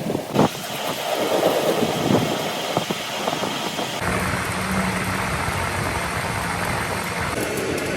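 Workshop machinery: a few knocks and clatter over a running noise, then, after a sudden change about halfway, a machine motor running steadily with a low drone.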